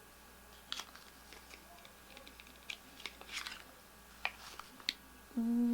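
Light clicks, taps and a short rustle of a lip gloss and its packaging being handled and opened. A woman's voice begins a long 'ooh' at the very end.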